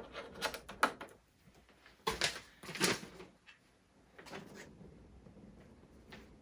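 Plastic toy parts being handled and fitted onto a toy spaceship: a few sharp clicks and knocks, loudest about two to three seconds in, with quieter handling noise between.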